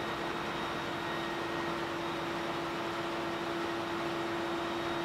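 Ship's engine-room machinery noise: a steady, even roar of running machinery and ventilation with a steady mid-pitched tone running through it.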